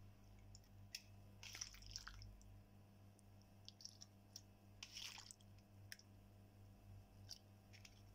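Faint soft, wet squishes and light taps as ripe jackfruit bulbs are dropped by hand into a stainless-steel mixer-grinder jar, a few scattered contacts over a steady low hum.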